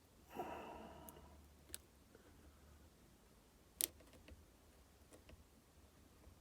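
Faint clicks and light scraping of a lock pick working inside an EVVA 3KS high-security slider lock, with one sharper click just under four seconds in.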